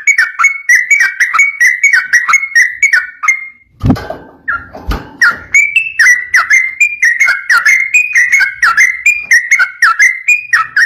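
Yellow-vented bulbul (trucukan) singing a fast, continuous run of bubbly whistled notes, several a second, with a brief break about four seconds in, where there is a short low thump.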